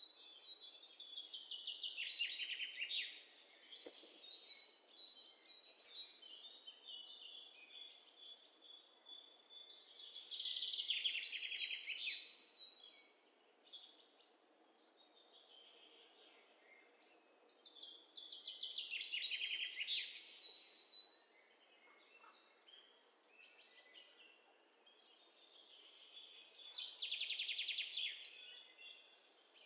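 A bird calling faintly: a descending trilled phrase, repeated four times at roughly eight-second intervals.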